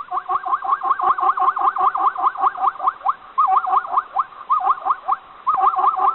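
An animal's rapid series of short, high rising squeaks, about four or five a second, broken by a couple of brief pauses.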